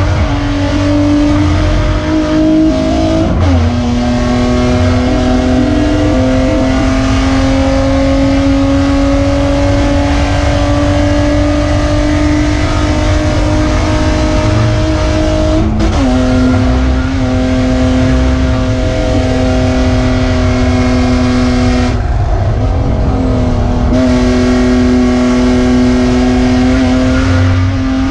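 BMW E36 Spec3 race car's straight-six engine and exhaust heard from inside the cabin, pulling hard at high revs. The pitch climbs slowly, drops suddenly about three seconds in and again about sixteen seconds in, and eases for a couple of seconds near the end before picking up again.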